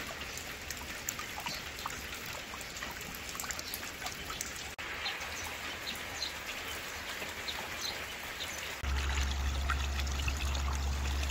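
Steady patter of rain falling on water, with scattered single drops splashing. About nine seconds in it changes to a louder, deeper rush of rain runoff pouring down a concrete ditch.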